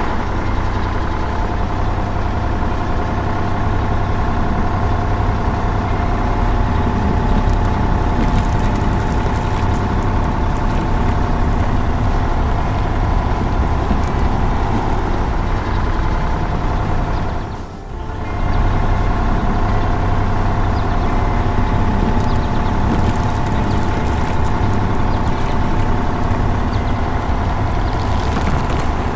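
Heavy road roller engine running steadily, dipping briefly about two-thirds of the way through.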